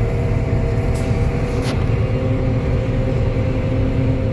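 Combine harvester running steadily: a loud, even low drone with a steady whine over it, heard from the cab, and two faint clicks about a second and a half apart.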